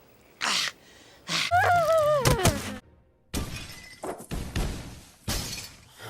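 Cartoon crash sound effects: a string of sudden crashes, clatters and breaking sounds, with a wavering tone falling in pitch about one and a half seconds in.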